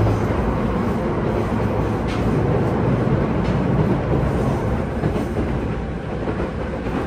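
Local train running along the track: a steady low rumble of wheels and carriage, with a few faint clicks.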